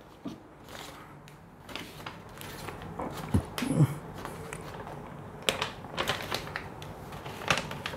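Quiet handling sounds: scattered clicks and taps of whiteboard markers and a sheet of paper being handled, with a marker touching the whiteboard.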